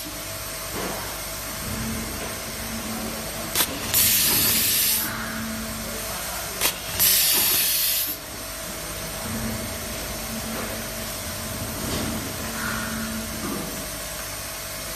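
SWIFT SWT36150H handheld automatic cable tie gun, air-fed, cycling twice. Each cycle is a sharp click followed by about a second of compressed-air hiss as it tightens and cuts a nylon tie and the next tie is fed.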